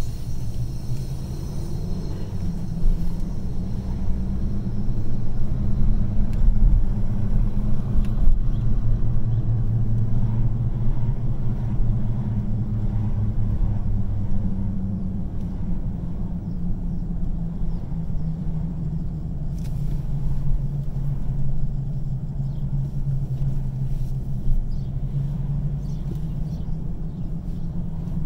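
A car's engine and road noise heard from inside the cabin through a dashcam, a steady low drone that shifts slightly in pitch as the car moves along, with a few faint ticks.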